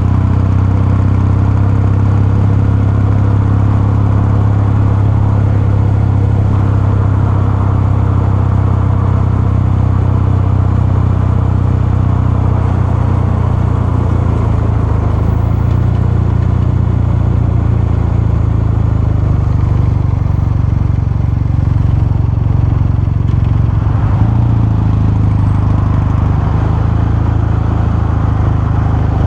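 Kawasaki Meguro K3's twin-cylinder engine and exhaust running at steady revs while riding, with a brief change in revs about twenty-four seconds in.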